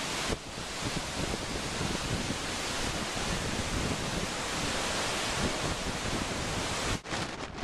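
Hurricane-driven surf crashing and washing over shoreline rocks, mixed with strong wind buffeting the microphone in a steady, dense rush. The sound briefly drops out about seven seconds in.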